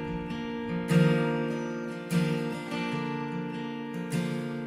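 Background music of strummed acoustic guitar chords, with a fresh strum about every one to two seconds.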